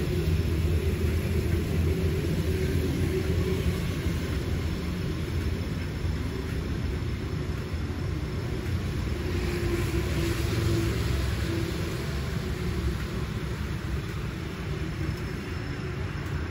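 Diesel locomotive of a freight train running nearby: a steady, low engine rumble with a hum.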